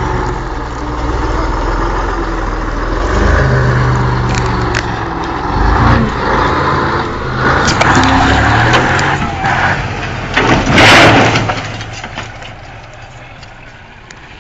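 A heavy engine running and changing pitch as it is worked, with scattered knocks. A loud rushing burst of noise comes about eleven seconds in, then the sound dies down.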